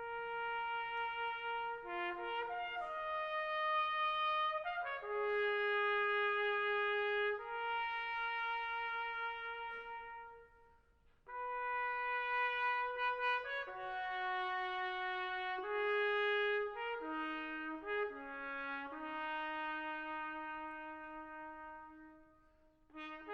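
Solo trumpet playing a slow melody of held notes in two phrases, with a short break about ten seconds in; the last note fades out near the end.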